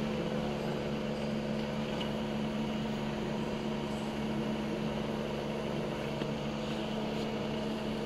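Syringe plugging machine's motor running with a steady electric hum. Faint clinks of glass syringes being handled come about two and four seconds in.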